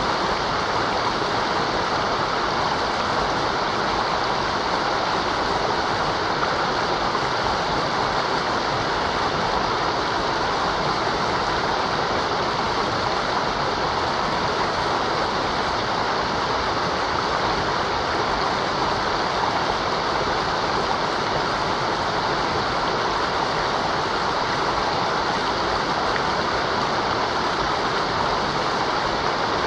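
Mountain river rushing steadily over rocks, a continuous even rush of water.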